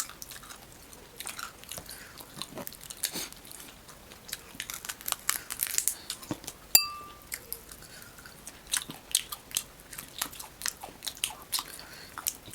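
Close-miked crunching and cracking of hard fried crab shell, with chewing, heard as a run of short sharp cracks. There is one louder, ringing clink a little past halfway.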